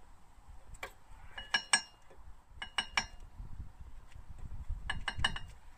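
Sharp metallic clinks in a few quick clusters as a brake pad's steel backing plate and clips are worked into the caliper bracket of a car's disc brake.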